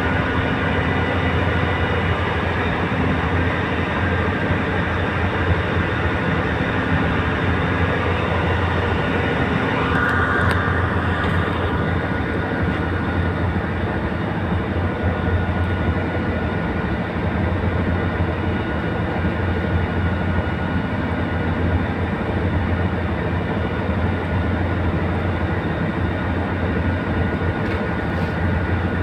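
A boat's engine running steadily, heard from on board: a constant low drone with a steady hum of several tones.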